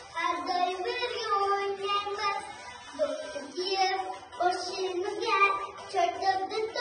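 A young girl singing a song in a clear child's voice, with held notes and short breaks between phrases.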